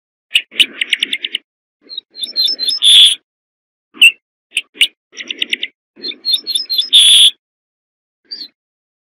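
Ortolan bunting singing: two songs, each a fast run of short repeated notes, then a few higher notes, ending in a loud, drawn-out final note.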